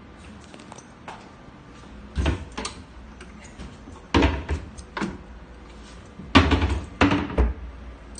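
Wooden kitchen cabinet doors being opened and shut by hand: a run of knocks and clunks, loudest about four seconds in and again in a cluster near the end.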